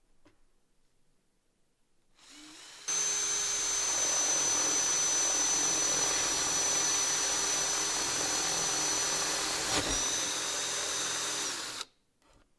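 Cordless drill boring a hole through plywood. The motor starts softly about two seconds in, then runs at full speed with a steady high whine for about nine seconds, with a brief hitch near the end, and stops abruptly.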